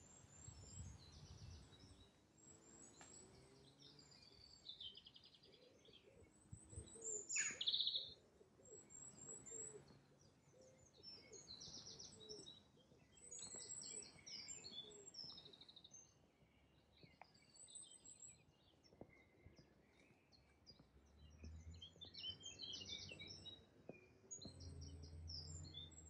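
Several songbirds singing and calling: many short high chirps and trills throughout, and one louder call that sweeps downward in pitch about seven seconds in. A faint low rumble comes in near the end.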